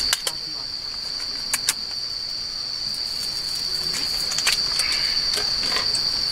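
Crickets trilling in a steady, unbroken high chorus, with a few sharp clicks of chopsticks against a metal bowl.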